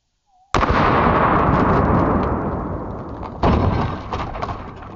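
.308 rifle shot striking a homemade steel-and-porcelain-tile armor plate: a sudden loud report about half a second in that rolls away slowly. A second loud bang follows about three seconds later and also dies away slowly.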